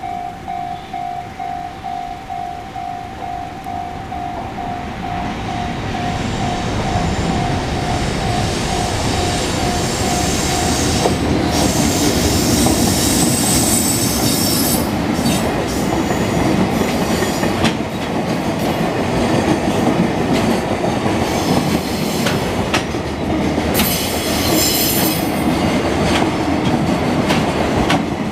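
Electronic level-crossing bell ringing in quick regular pulses, about two a second, while a train approaches. The train's rumble swells and covers the bell after about ten seconds, and the train then passes over the crossing with a steady clatter of wheels over rail joints.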